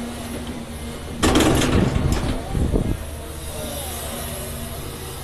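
Caterpillar 336 Next Gen excavator running, its diesel engine and hydraulics droning with a rising and falling whine. About a second in, a loud crunching rattle lasting under two seconds as the bucket tears through rocky clay.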